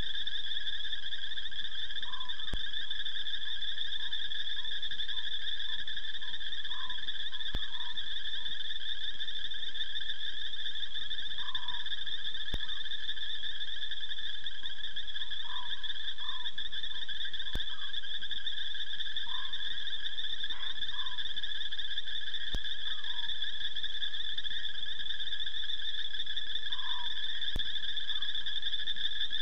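Night-time chorus of calling frogs and insects: a steady, unbroken shrill trill at two high pitches, with short lower chirping calls scattered over it. A faint click comes about every five seconds.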